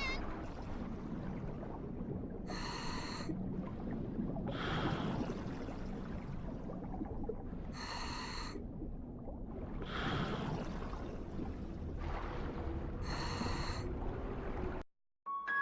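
Steady low underwater rumble with a breath-like hiss repeating about every five seconds, the louder hisses with a ringing, whistling edge and softer ones falling between them, like slow breathing.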